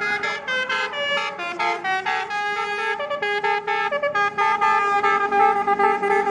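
Basuri 'telolet' musical horn on a bus playing a tune, several horn tones sounding together. It plays quick short notes at first, then longer held notes from about halfway on.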